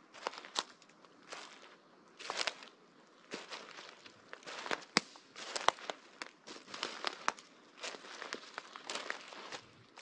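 Footsteps through dry leaf litter, about one step a second, each step crunching the leaves, with sharp snaps of small twigs and branches breaking underfoot in several of them.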